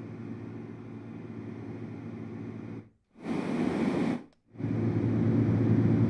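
LectroFan white noise machine playing a steady, deep hiss, strongest in the low end. It cuts out briefly about three seconds in and again a little past four seconds, coming back louder each time as the machine is held closer.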